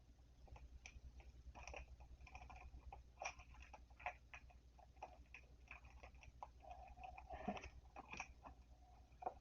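Near silence with faint scattered clicks and short rustles: trading cards and packs being handled.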